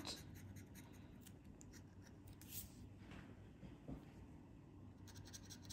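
Faint scraping of a metal scratcher tool rubbing the silver coating off a lottery scratch card, in short soft strokes.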